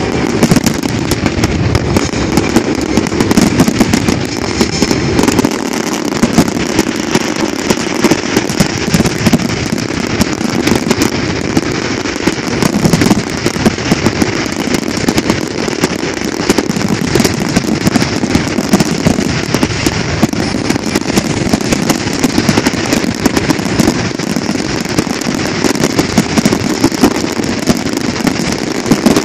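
Large aerial fireworks display: a rapid, unbroken run of shell bursts and crackle from many fireworks going off at once.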